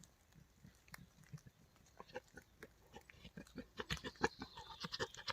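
A wild boar coming closer through wet forest litter: short rustles and crackles of its steps, with pig-like grunting, growing denser and louder over the last couple of seconds.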